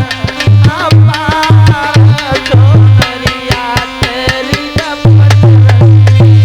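Instrumental passage of Hindi devotional bhajan music: a fast drum rhythm with tabla-like strokes and heavy deep beats under a wavering melody instrument.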